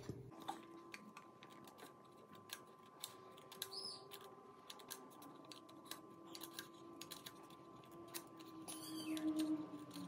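Handheld craft scissors snipping through a paper circle: a string of short, irregular snips, louder near the end.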